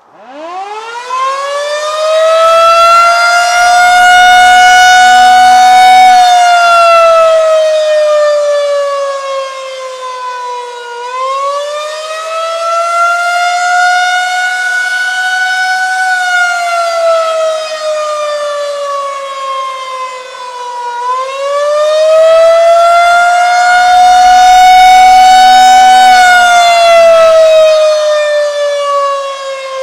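Federal Signal 2001 rotating electromechanical outdoor warning siren winding up from a standstill, then sounding a loud tone that slowly rises and falls in pitch about every ten seconds. It swells loudest twice, about twenty seconds apart, as the rotating horn sweeps past.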